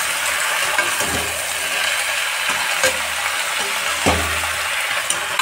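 Chopped sponge gourd, its flowers and leafy greens sizzling in hot mustard oil in a kadhai as they are stirred, with a couple of knocks of the spatula against the pan.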